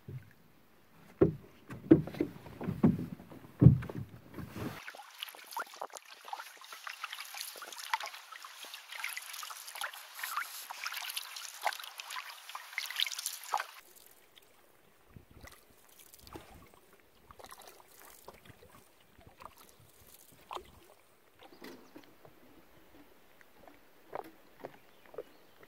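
Knocks and thumps of gear and a hull as a canoe is loaded at a wooden dock, the loudest sounds here. About five seconds in, paddle strokes and water splashing against the canoe take over, cutting off suddenly around the middle; after that only faint scattered knocks.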